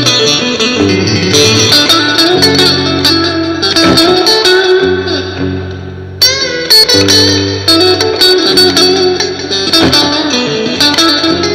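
Electric guitar, a Stratocaster-style solid-body, playing a blues lead over a backing riff with steady bass notes. About six seconds in a held note dies away and a new phrase comes in sharply with bent notes.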